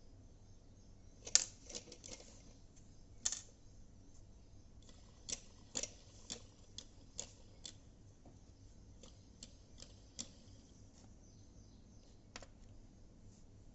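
Scattered, irregular clicks and light knocks of small hard parts being handled, with the sharpest one about a second and a half in and a run of quicker clicks in the middle.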